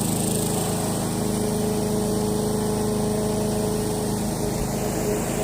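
Petrol lawnmower engine running steadily.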